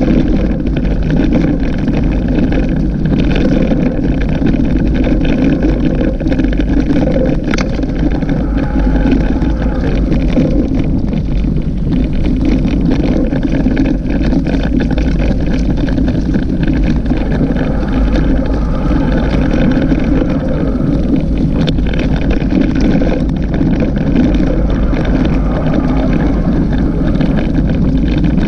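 Steady wind rumble on the microphone and tyre noise while riding an off-road dirt track, with two sharp clicks, about seven seconds in and again about twenty-two seconds in.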